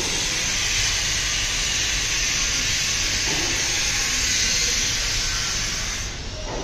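A loud, steady hiss that sets in abruptly and dies away about six seconds in.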